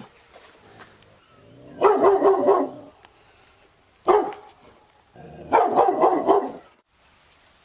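A dog barking. There is a quick run of barks about two seconds in, a single bark around four seconds, and another quick run of barks shortly after.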